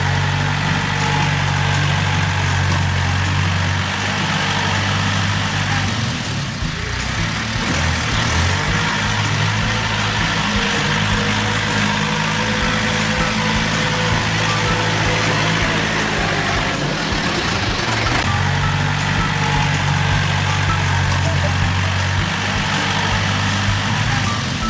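Bulldozer's heavy diesel engine running steadily under load, a deep low-pitched drone that eases off twice before picking up again.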